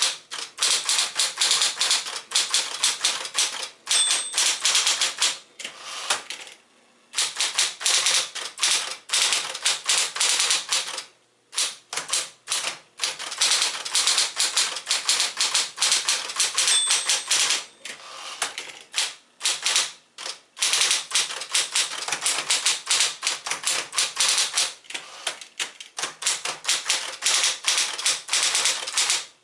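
Typing on a 1966 Sears Celebrity 12 manual typewriter, a Smith-Corona with 5TE mechanics: rapid bursts of typebar clacks with a few short pauses. A short ring sounds twice, about four seconds in and again about halfway through, typical of the margin bell near the end of a line.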